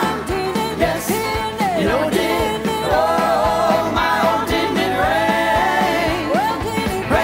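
Live gospel singing: several voices singing in harmony, with swooping slides in pitch, over backing music with a steady beat.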